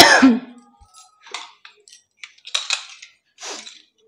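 Metal knocks and clinks from an aluminium pressure cooker and its lid being handled. A loud knock with brief ringing comes first, then several light clinks and scrapes.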